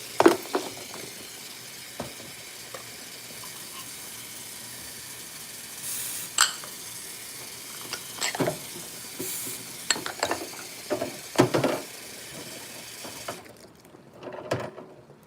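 Tap water running steadily into a kitchen sink while dishes, glasses and cutlery clink and knock as they are washed and handled; the water shuts off about two seconds before the end, leaving a few more clinks.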